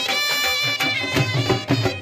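Folk-style music: a held, wavering wind-instrument melody over a steady drumbeat.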